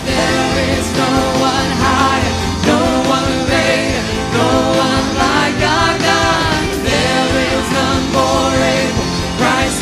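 A live worship band plays a contemporary Christian song. Voices sing over electric and acoustic guitars, and the music carries on without a break.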